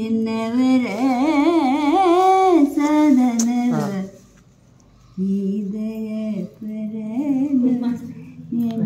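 An elderly man singing a Kannada Haridasa devotional song unaccompanied, with long held notes that waver in ornamented turns. The voice breaks off for about a second near the middle, then carries on.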